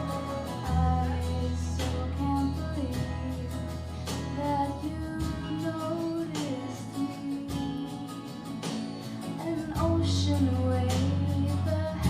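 Music with guitar strumming over held bass notes and a melody line.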